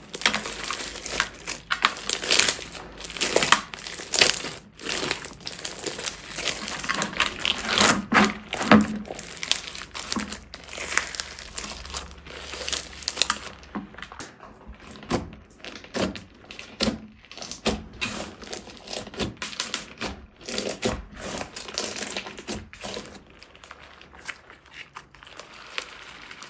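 Slime being kneaded and squeezed by hand, crackling and crinkling densely for about the first half, then with sparser, duller pops.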